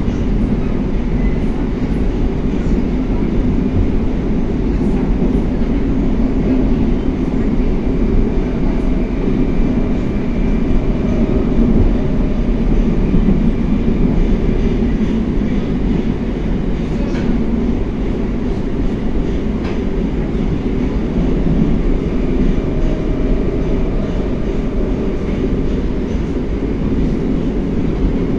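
Moscow Metro 81-760A/761A "Oka" train running between stations, heard from inside the car: a steady, loud rumble of the car and its wheels on the rails, with a faint whine above it.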